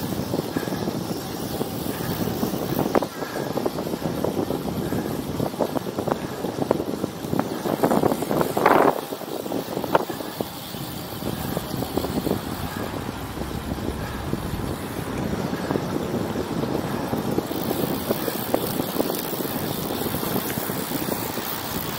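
Wind rushing over the microphone and tyre noise on the road, from a bicycle ridden at speed, with a louder rush about eight seconds in.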